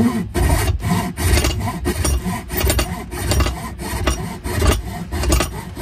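Crosscut back saw sawing across the grain of a board clamped in a bench vise: a steady rhythm of rasping push-and-pull strokes, roughly two to three a second, cutting the shoulder kerf of a dado.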